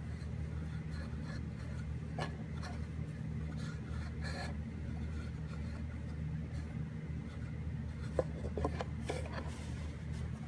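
Scattered rubbing and rustling handling noises with a few small clicks, over a steady low hum.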